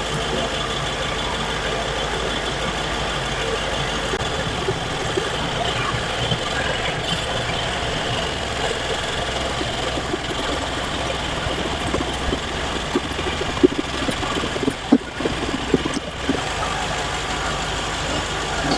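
BMW 750i's twin-turbo V8 idling steadily, with a few short knocks and clicks about three-quarters of the way through.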